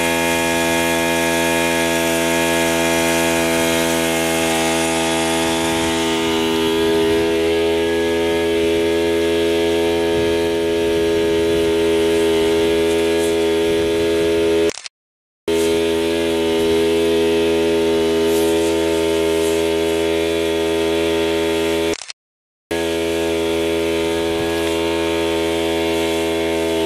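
A small engine running steadily at one constant pitch. It drops out twice for about half a second.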